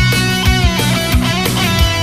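Background rock music with distorted electric guitar, sliding notes and a steady drum beat.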